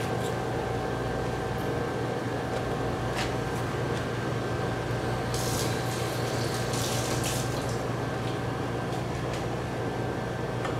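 Steady machine hum from kitchen equipment such as a fan or refrigeration unit, with a few faint clicks. A hiss of running water starts about five seconds in and stops about two seconds later.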